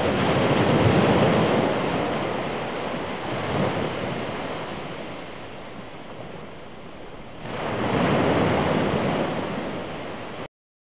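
A loud rushing noise that swells about a second in, eases, swells again near the end, and then cuts off suddenly.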